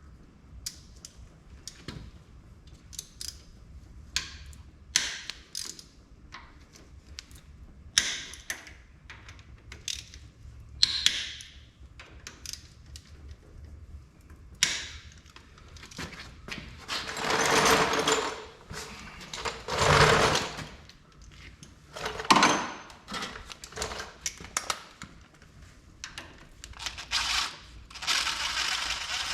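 Hand tools on the bolts of a tractor's PTO seal housing: a ratchet wrench clicking in quick runs of a second or two, between single metallic clinks and knocks of tools and parts.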